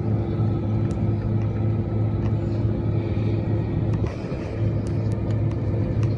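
Steady low hum of a jet airliner waiting on the ground for de-icing, heard from inside the cabin.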